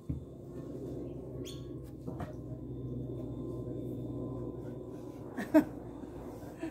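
Soapy sponge being scrubbed over a wet car roof against a steady low background hum, with a faint bird chirp about a second and a half in and a brief sharp sound about five and a half seconds in.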